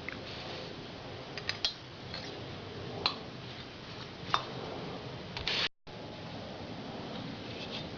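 A few light clicks and taps from small engine parts being handled, over a faint steady background hiss.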